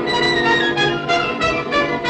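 Orchestral film score, strings and brass playing a fast dramatic figure that pulses about four times a second.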